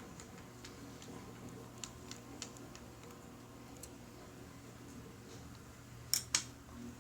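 Light, scattered clicks and taps of small parts being handled, with two sharper clicks in quick succession near the end, over a low steady hum.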